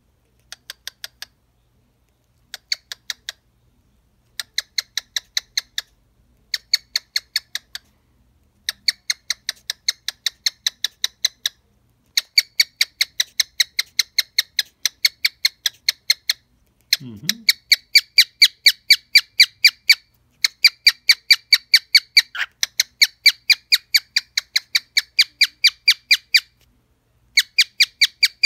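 Cockatiel at a small mirror, making quick runs of short sharp ticks, about five a second, in bursts lasting from under a second to several seconds that grow longer and louder. A brief low sliding sound comes a little past the middle.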